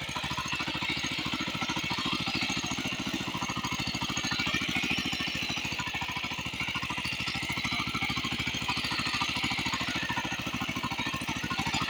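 Small tractor engine running steadily, with a rapid, even chugging that does not change.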